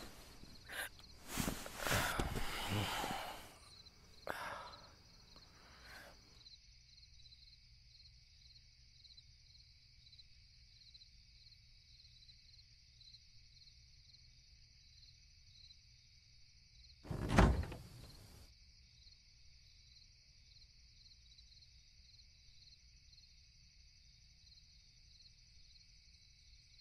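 Crickets chirring steadily at night, with rustling movement in the first few seconds and one sudden loud thud about seventeen seconds in.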